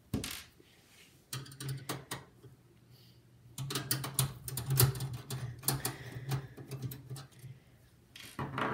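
Screwdriver undoing the bracket screws of the expansion cards in a vintage PC case: bursts of small metallic clicks and scraping, in a short spell about a second in and a longer one from about three and a half seconds to seven.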